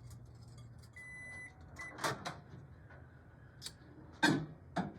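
Microwave oven with a low steady hum that stops about a second in, then a long beep and a short beep, followed by two sharp clacks of the door latch and a few knocks as the bowl is handled near the end.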